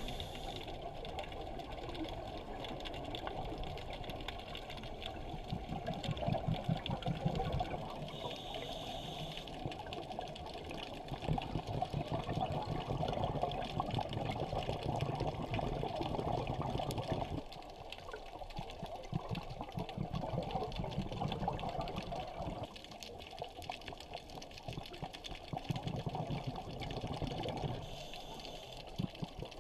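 Underwater sound through a camera housing: steady water noise with a constant fast crackle of tiny clicks. A low rumble swells and fades several times.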